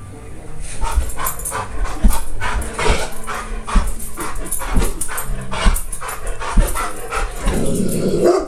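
Bernese mountain dog barking repeatedly, the loudest barks about once a second, as it jumps at the TV screen.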